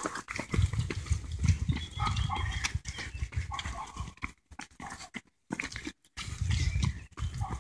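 Runners' footsteps slapping on a brick path and their heavy breathing as they pass close by. The sound cuts out briefly several times in the second half.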